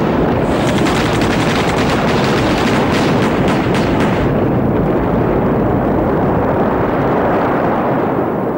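Film sound effects of battle: a rapid crackle of gunfire over a continuous heavy explosion rumble, the shots thick for the first few seconds and then giving way to the rumble alone.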